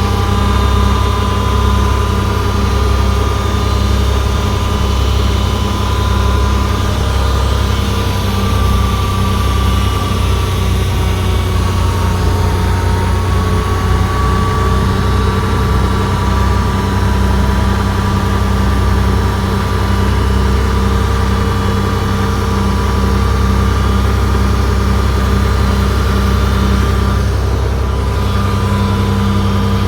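Komatsu D31P bulldozer's diesel engine running steadily under load, its pitch dipping and rising slightly a few times as it works.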